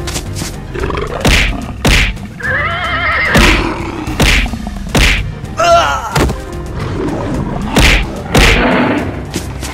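Animated-fight sound effects: a series of about eight heavy hits and thuds, with two wavering animal cries, one about two and a half seconds in and one near the middle, over background music.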